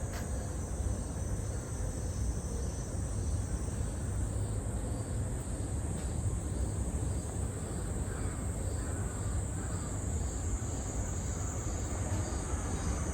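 Insects shrilling outdoors in summer heat: a steady high buzz with a soft pulsing chirp about twice a second, over a constant low rumble.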